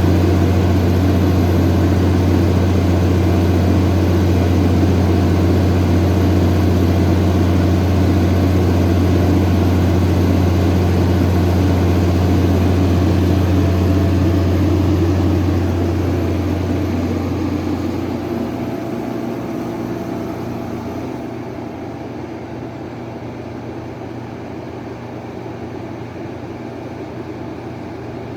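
175 kW Cummins/Onan diesel generator set running steadily with a deep, even hum. About two-thirds of the way through, the sound gradually gets quieter, the deep hum drops out, and a lighter, quieter running sound remains.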